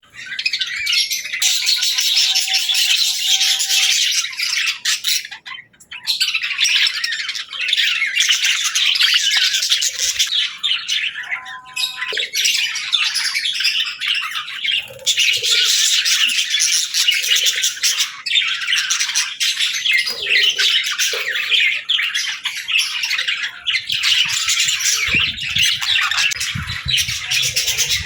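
Budgerigar chattering and warbling in long, rapid runs of high chirps and squawks, with brief breaks about five and twelve seconds in. Some low thumps near the end.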